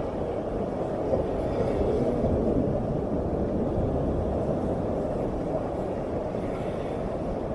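Ocean surf breaking and washing up the beach: a steady rush of waves that swells slightly a couple of seconds in.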